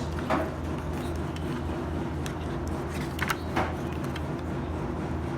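Steady low hum with a few brief rustles or clicks of the album packaging being handled: one about a third of a second in and two close together a little past three seconds.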